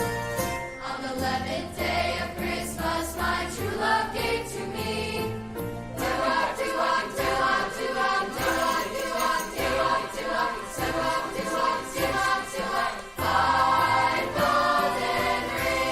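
Choir singing Christmas music with instrumental accompaniment and a steady beat.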